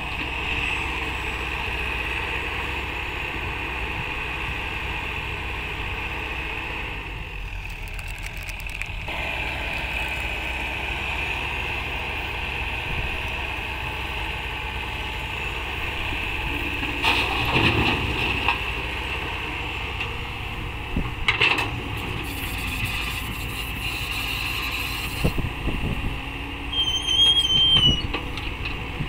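Komatsu PC hydraulic excavator's diesel engine running steadily, with a constant high whine over it. A few short louder bursts of mechanical noise come a little past halfway and again near the end, one with a brief wavering squeal.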